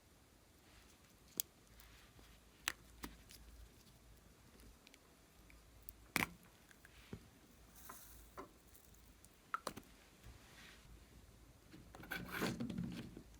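Slime and the small items being mixed into it handled close to the microphone: scattered small clicks and taps, then a short, louder squishing rustle near the end.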